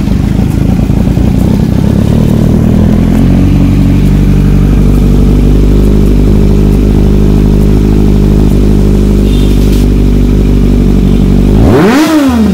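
Kawasaki Z900's inline-four engine, freshly started, idling steadily and loud through an aftermarket MGP slip-on exhaust. Near the end the idle gives way to a sharp rise and fall in pitch as the engine is revved.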